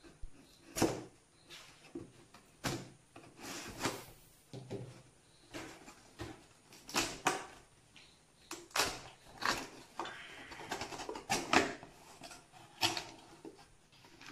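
Cardboard laptop box being opened by hand: packing tape slit and the flaps worked open, giving an irregular string of sharp cardboard knocks, scrapes and rustles.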